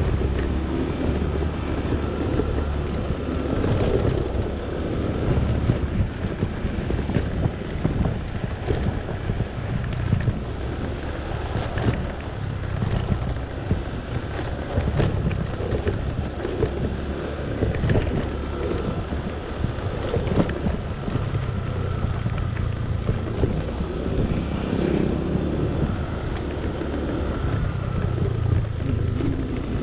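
Honda automatic scooter being ridden along, its small engine running steadily, with wind buffeting the microphone.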